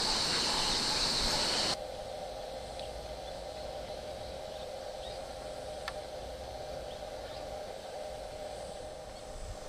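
A steady, shrill insect chorus cuts off abruptly about two seconds in. A quieter, lower steady drone follows, with a few faint chirps and clicks.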